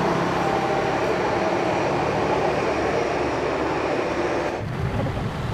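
Jet airliner's engines running with a loud, steady roar as the plane rolls along the runway. Near the end the sound turns duller and lower.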